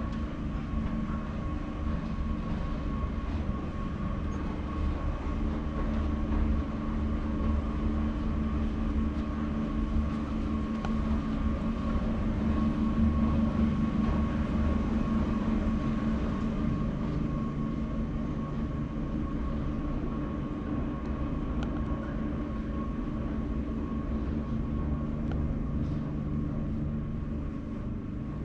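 Steady low mechanical rumble and hum with a few constant tones, growing a little louder around the middle and easing off again.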